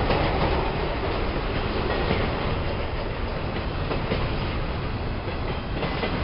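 Double-stack intermodal well cars of a freight train rolling past: a steady rumble of steel wheels on rail, with a few clicks as the wheels pass over the rail joints.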